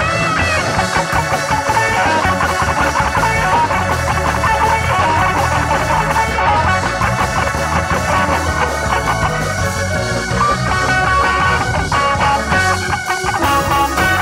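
Church band playing loud, upbeat praise music, led by quick electric-guitar runs over a steady bass line.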